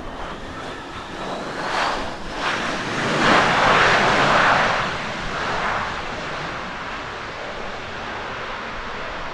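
Ibex Airlines CRJ-700 regional jet on its landing rollout, its two rear-mounted GE CF34 turbofans running loudly. The engine noise swells to a peak a few seconds in, then falls away to a steadier roar as the jet slows.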